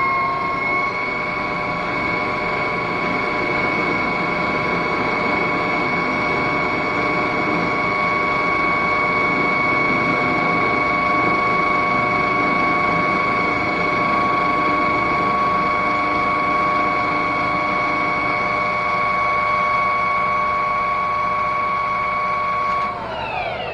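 Powered machine tool running at a steady speed with a constant whine, settling in pitch in the first second. About 23 seconds in it is switched off and spins down, its pitch falling away.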